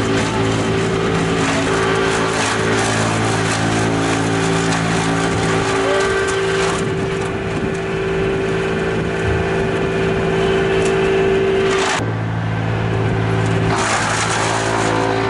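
Tractor-driven wood chipper running steadily: the tractor's engine hum under the noise of Christmas trees being shredded. The sound changes abruptly about twelve seconds in.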